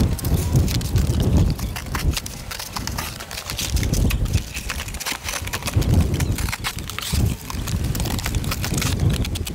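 A pocketknife slicing through cardboard: irregular crackling cuts and tearing, with dull thumps as the cardboard is handled and wind buffeting the microphone.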